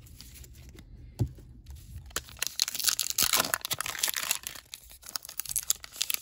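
Wrapper of a Topps Heritage baseball card pack being torn open and crinkled by hand. There is one sharp click about a second in, then a couple of seconds of dense tearing and crackling that eases off toward the end.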